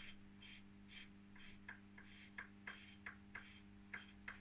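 Faint, irregular light metallic clicks, two or three a second, from oiling and handling the lathe spindle parts, over a steady low hum.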